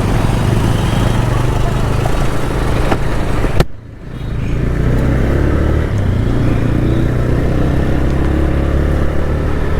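Motorcycle engine running steadily under way, with wind and road noise. About three and a half seconds in a sharp click cuts in and the sound briefly drops away before the engine note returns.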